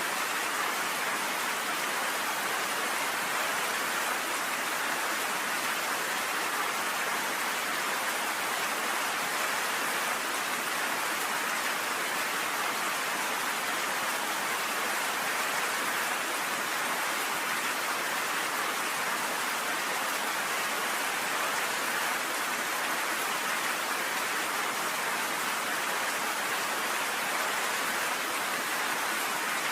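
Steady rain pelting down on a cabin porch, an even hiss with no thunder.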